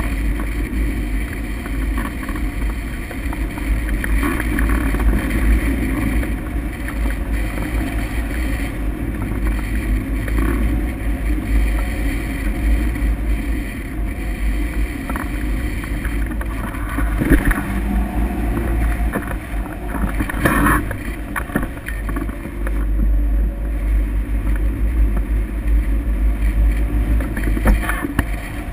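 Wind buffeting the microphone of a camera mounted on a hang glider in flight: a steady low rumble of rushing air, with a few brief louder gusts.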